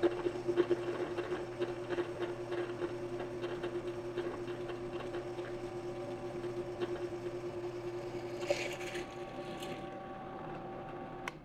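VEVOR DP12VL benchtop drill press running at about 800 RPM on its 5A induction motor, a 5/16 inch bit cutting into 1/4 inch steel with an irregular crackle over the steady motor hum. Near the end a click, and the motor stops.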